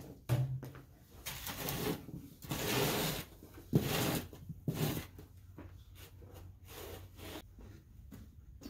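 Ice crunching and scraping: a run of short, irregular noisy strokes for about the first five seconds, fainter and sparser after that.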